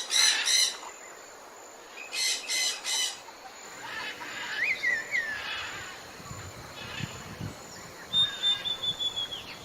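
Jungle ambience of bird calls: a short run of quick repeated high notes, given twice in the first three seconds, then brief gliding chirps, and a thin high whistle held for about a second near the end.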